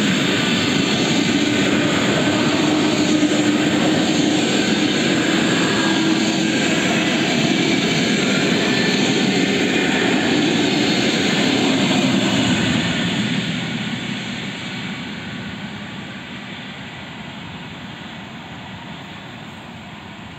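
Suburban electric train passing close by: a steady rumble of wheels on rails with a faint steady hum, dying away gradually over the last several seconds as the train pulls away.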